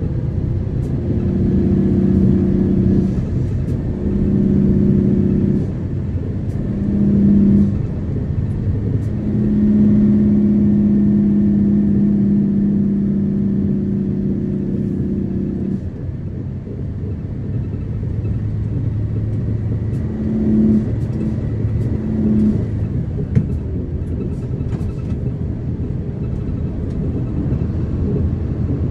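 Motor vehicle heard from inside the cabin while driving: a steady engine and road rumble, with a low engine drone that comes in and drops away several times, longest from about nine to sixteen seconds in.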